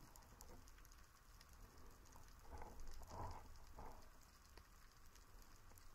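Faint underwater ambience picked up through a camera housing: a steady light crackle of scattered tiny clicks, with a few muffled swishes of moving water between about two and a half and four seconds in.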